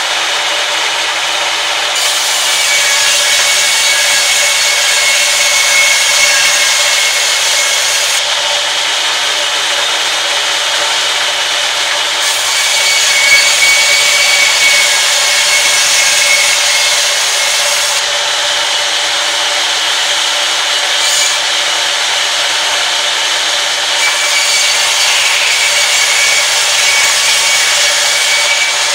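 Sawmill band saw running steadily and ripping long timber boards lengthwise. The hissing cutting noise, with a faint whistle, swells three times for about six seconds each as boards pass through the blade, and drops back to the saw's running hum in between.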